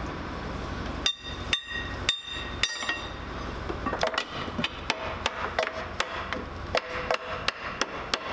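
Hammer blows ringing on the steel links and end connectors of a Sherman tank track: a few hard clanging strikes about half a second apart, then from about four seconds in a quicker run of lighter blows, about three a second.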